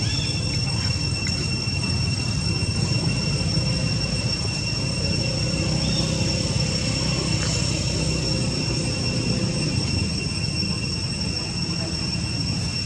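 Steady outdoor background: a continuous low rumble with a steady high-pitched whine held over it.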